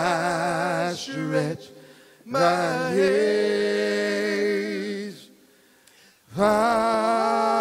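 Male vocal trio singing a gospel song a cappella in close harmony with vibrato: a short phrase, a long chord held for about three seconds, a pause, then another phrase near the end.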